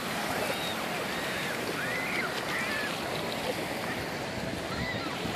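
Small waves washing in over shallow water at the shoreline: a steady hiss of surf. Faint distant voices call out now and then behind it.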